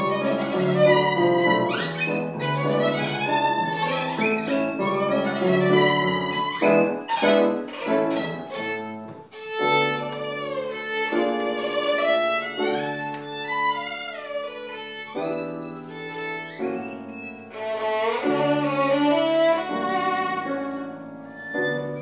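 Violin playing a lively melody with quick sliding notes, over piano accompaniment.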